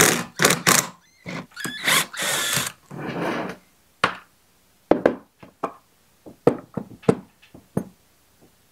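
Cordless power driver spinning the through-bolt nuts off a starter motor in short runs during the first three seconds or so. After that come scattered sharp metal clicks and knocks as the wrench, nuts and starter housing are handled on a wooden bench.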